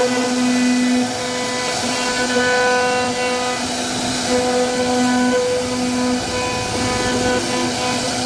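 CNC router spindle carving a wooden door panel: a steady high whine with overtones over the rasp of the bit cutting wood, its tone coming and going slightly as the cut load changes.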